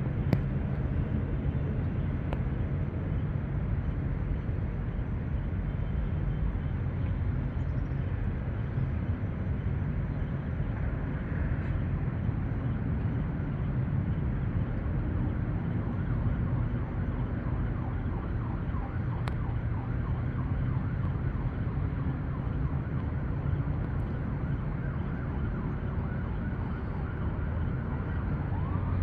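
Steady low rumble of distant traffic.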